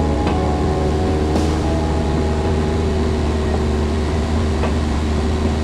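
Cessna 172's piston engine and propeller droning steadily in flight, heard from inside the cockpit, with a few faint clicks.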